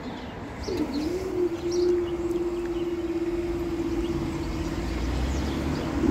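Level crossing barrier's drive motor whining as the barrier lifts after the train has passed. A single steady tone starts about a second in with a brief dip in pitch, holds level, and cuts off near the end, as the road lights go out.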